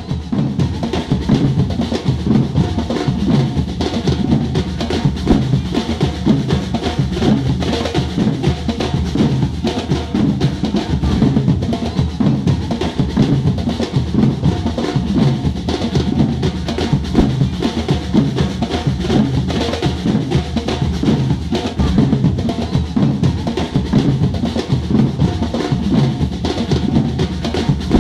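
Batucada street drum band playing: dense, steady drumming of bass drums and snares.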